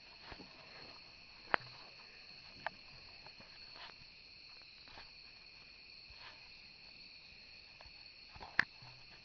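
Steady high-pitched chirring of crickets, broken by a few sharp clicks; the loudest click comes near the end.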